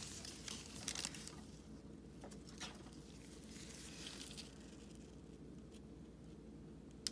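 Faint rustling and soft handling noises of gloved hands putting down a plastic piping bag and picking up a scribe tool over parchment paper, in a few short bursts over a low steady hum.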